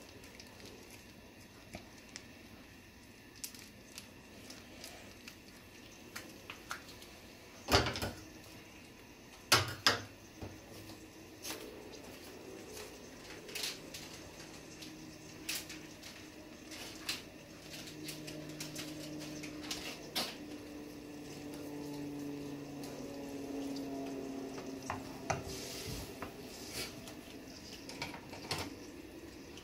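Soup broth with bacon and vegetables heating in a deep pan on a gas burner, coming up to a simmer: scattered small ticks and pops, with a low hum building through the second half. A few sharp knocks, the loudest sounds, come about a third of the way in.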